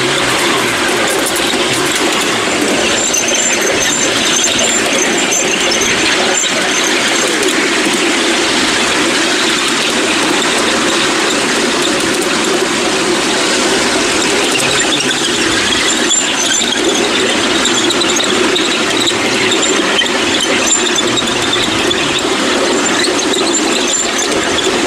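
Ride-on miniature railway train running along its track: a steady rattle of steel wheels on the rails, with a thin high squeal of the wheels coming and going.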